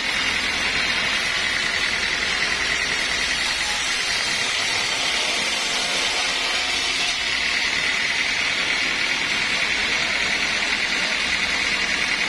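Sawmill machinery running steadily, an unbroken mechanical noise with a strong band high in pitch.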